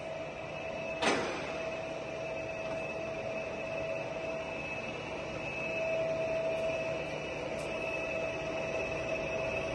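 Giana heavy-duty lathe running with its carriage traversing under power feed at the minimum feed rate: a steady mechanical hum with a high, even whine. A single sharp clunk about a second in as a feed lever is thrown.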